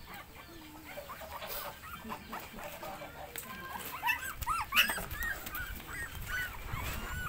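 Newborn puppies whimpering: short, high squeaks that rise and fall in pitch, a few at first, then coming thick and fast from about four seconds in.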